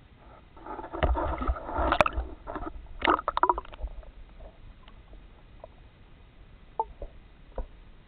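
Water sloshing and bubbling around an underwater camera, with a cluster of sharp knocks and clicks for about three seconds, then a few single clicks near the end.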